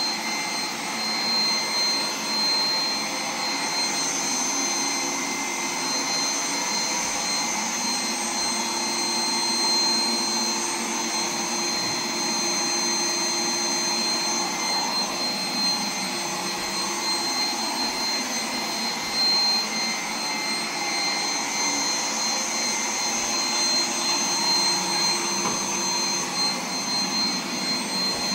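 Roomba 980 robot vacuum running: a steady whirr with constant high-pitched whines from its motors.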